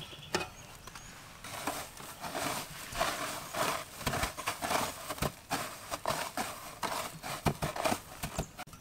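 Hands tossing and pressing chicken pieces in a metal tray of dry white crumbs: crisp rustling and crunching with many small clicks, picking up about a second and a half in.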